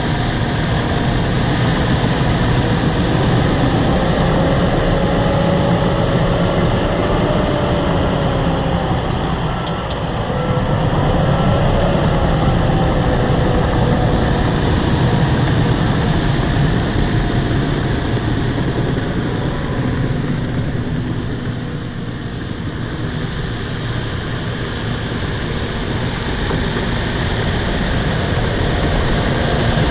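Bulldozer's diesel engine running steadily, with a faint wavering whine over it. The sound eases off briefly about ten seconds in and again a little past twenty seconds before picking back up.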